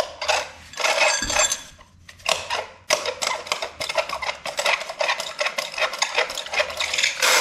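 Quick, repeated scrubbing strokes on a car's interior trim piece as it is cleaned with acetone, coming faster and denser from about two seconds in.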